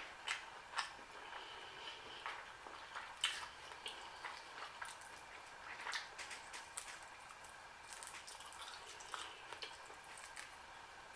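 A person chewing food with open-mouth smacking: irregular wet clicks and squelches, the loudest about three seconds in.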